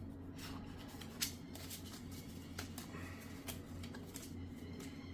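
Trading cards and booster packs being handled: faint rustles and light clicks, with one sharper click about a second in, over a low steady hum.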